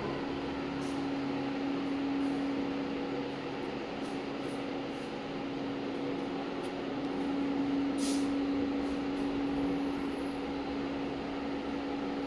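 A steady machine hum: an even noise with one constant low tone, unchanging throughout, with a brief faint click about eight seconds in.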